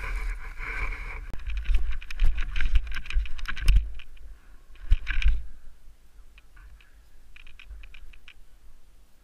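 Crackling scrape and crunch of snow under a rider sliding through powder, with wind rumbling on the camera's microphone. A couple of knocks come between about four and five seconds in as the rider stops; after that it is much quieter, with a few scattered clicks.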